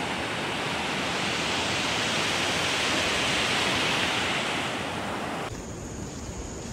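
Surf washing onto a sandy beach: a steady rush of waves that swells and then eases. Near the end it drops suddenly to a quieter sea rush.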